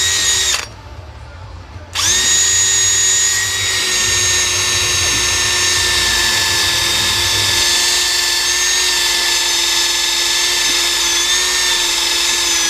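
Electric drill whining at steady speed as it bores into an aluminium brake caliper where the bit has reached steel. It stops just under a second in, starts again about two seconds in, runs on steadily, and winds down right at the end.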